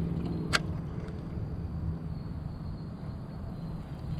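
Low wind rumble on the microphone, with one sharp click about half a second in.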